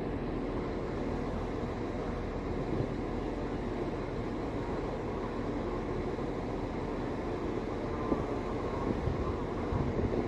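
Irish Rail diesel multiple unit pulling away from the station: a steady low engine and wheel drone that holds at much the same level.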